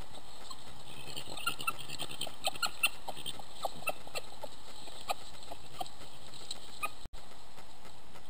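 Steady hiss from a trail camera's microphone with a scatter of short clicks and crackles, densest between one and three seconds in, as badgers and their cubs scuffle over dry leaves and bedding. The sound drops out for an instant about seven seconds in.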